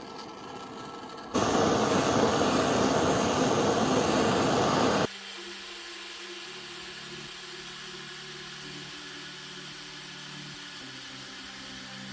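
A motor-driven power tool runs loudly for about four seconds, starting and stopping abruptly. Soft background music with sustained tones follows.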